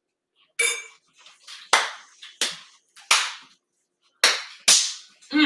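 Kitchen clatter: about seven sharp, unevenly spaced clanks and knocks of metal utensils against cookware and dishes. The first rings briefly.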